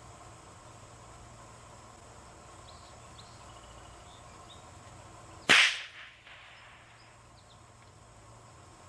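A single .22 LR rifle shot from a Ruger American bolt-action rifle firing CCI Mini Mag rounds, about five and a half seconds in, dying away quickly with a short echo. Crickets chirp steadily underneath.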